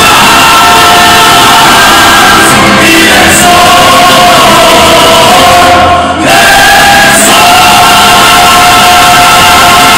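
A mariachi band of violins, trumpets and guitars, backed by a symphony orchestra, plays and sings with long held notes. The sound breaks off for an instant about six seconds in, then resumes on a sustained closing chord.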